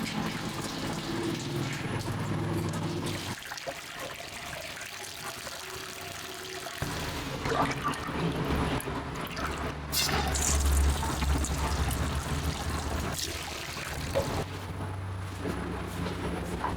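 Bakery dough mixer running with a steady low hum while liquid is poured into the bowl. From about seven seconds in, date syrup is being poured.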